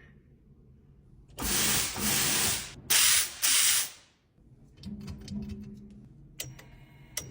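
Four short bursts of pressurised spray hiss, one after another, over about two and a half seconds.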